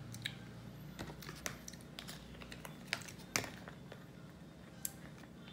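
Irregular light clicks and taps of plastic sauce containers being handled on a table, a squeeze bottle and a sauce pouch, with one sharper knock about three and a half seconds in.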